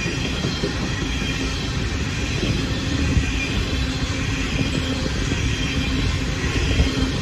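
Freight train of hopper wagons rolling past close by: a steady rumble of steel wheels on rail with a faint steady tone and a few louder knocks.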